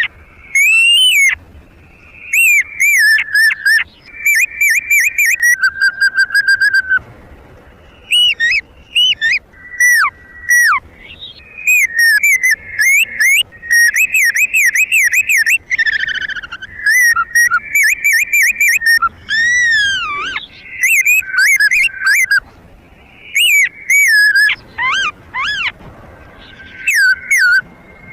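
Loud whistled bird-like calls, short phrases of rising and falling notes repeated again and again with brief pauses between them, the kind of call used to lure birds to a trap.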